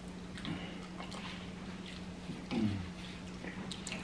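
Faint chewing and wet lip-smacking from a person eating roast chicken by hand, scattered soft smacks and clicks. A short low "mm" sound comes about two and a half seconds in, over a steady low hum.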